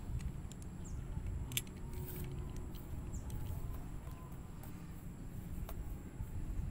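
Low, steady rumbling background noise on the microphone, with a few faint clicks.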